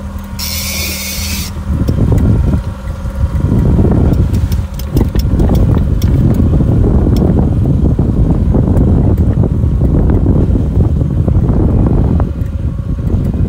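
A high buzz of a fishing reel's drag about a second long near the start, as a salmon takes line off the bent rod. From about two seconds in, a loud, rough rumble of wind and boat noise on the microphone covers everything.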